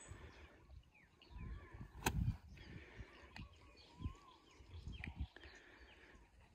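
A golf wedge strikes a ball once, a single sharp click about two seconds in. Birds chirp faintly around it.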